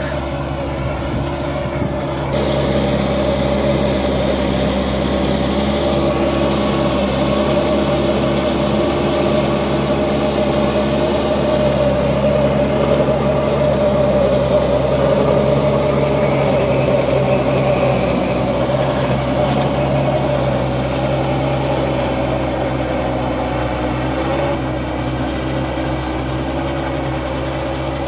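Massey Ferguson 375 tractor's diesel engine running steadily under load while driving a rotavator through the field. It grows louder about two seconds in and eases slightly near the end.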